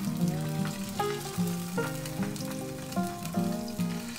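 A chidai (sea bream) fillet searing skin-side down in hot oil in a nonstick frying pan, a steady sizzle while the flesh is pressed flat so it does not curl in the heat. Background music with a stepping melody plays over it and is louder than the sizzle.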